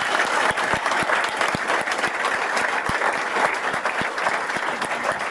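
Audience applauding steadily, with many individual claps standing out close by.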